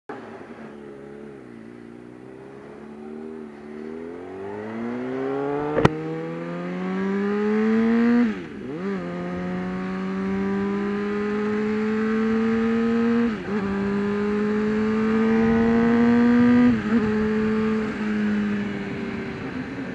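Honda CBR600RR inline-four sportbike engine pulling away and accelerating, the pitch climbing hard and then dipping at each of three upshifts before rising again, heard over wind noise from the rider's camera. One sharp click about six seconds in.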